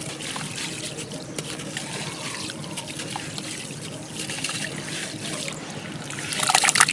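White chalky cement lumps crumbling, making a gritty trickling crackle of many small bits falling. A louder crunch comes near the end.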